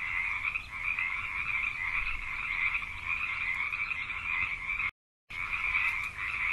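A dense night chorus of many frogs calling continuously in two overlapping pitch bands, cutting out completely for about half a second about five seconds in before resuming.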